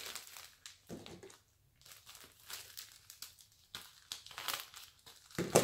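Plastic packaging bag crinkling and rustling in irregular bursts as it is handled and cut open, with a short pause about one and a half seconds in.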